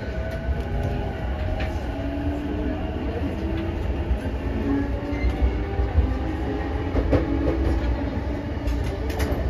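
Running noise inside a car of a JR East E233-0 series electric commuter train: a steady low rumble of wheels on rail, with a traction-motor whine and a few sharp clicks.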